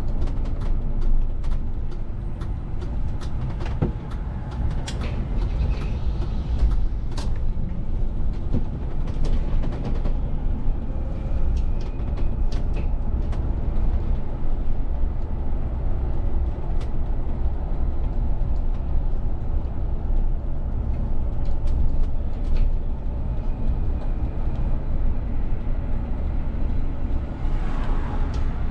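VDL city bus driving through town streets, heard from inside the driver's cab: a steady low rumble of engine and tyres, with scattered clicks and rattles throughout.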